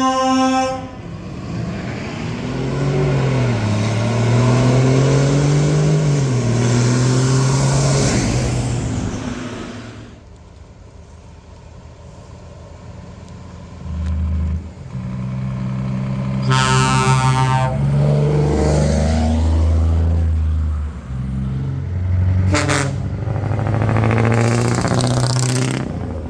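Diesel trucks with open exhaust pipes revving, the engine note rising and falling loudly in several bursts. A horn cuts off just after the start, and a short air horn blast sounds about two thirds of the way through.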